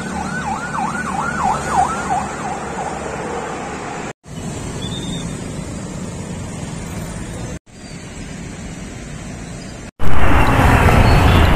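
A vehicle siren wailing in fast up-and-down sweeps, about four a second, for the first two seconds or so over steady street traffic. Then plain traffic noise runs on in short cut-together stretches. In the last second and a half there is a loud rush of noise.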